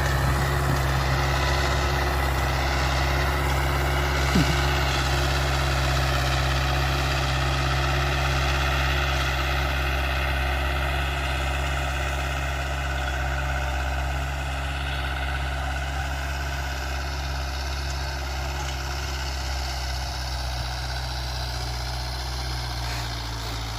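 Mahindra 475 DI tractor's four-cylinder diesel engine running at a steady speed after a full engine rebuild, with one short sharp sound about four seconds in.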